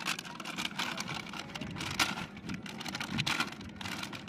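Plastic snack packet crinkling and crackling in the hands as it is opened, over a steady noise of wind and water.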